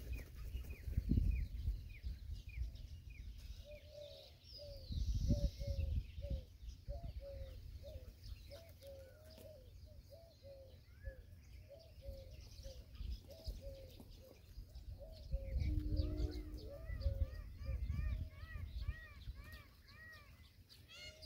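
Birds calling: a long run of repeated short chirps that rise and fall, about two a second. Higher chirps join in near the end. Three loud low rumbling bursts come about a second in, about five seconds in, and around sixteen to eighteen seconds in.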